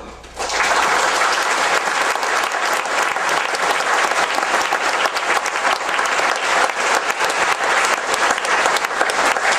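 A large seated audience applauding, the clapping breaking out about half a second in and going on steadily.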